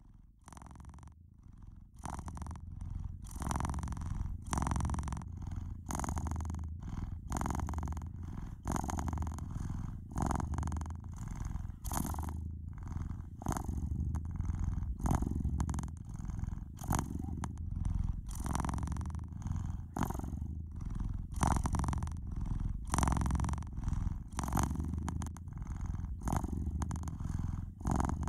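Domestic cat purring, a low rumble that swells and fades in a regular rhythm with each breath, starting about two seconds in.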